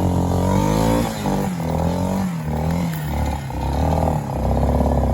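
ATV engine revving up and down again and again as it is driven through mud and water, its pitch rising and falling with short drops in between.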